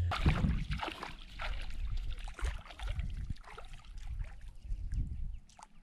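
Shallow seawater sloshing and splashing, with irregular clicks and crackles over a low rumble that fades near the end.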